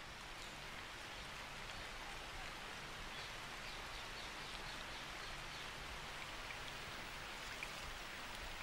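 Steady monsoon rain falling, an even hiss of drops, with a few faint high chirps in the middle.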